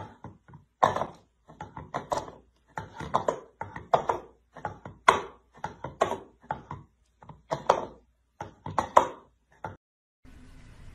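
A cat batting an upside-down plastic bowl with its paw: hollow knocks in a quick, uneven run of about two or three a second, stopping about a second before the end.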